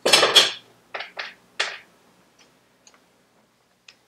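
Metal parts or tools handled on a workbench: a short scrape or rattle, then three quick knocks, then a few faint ticks.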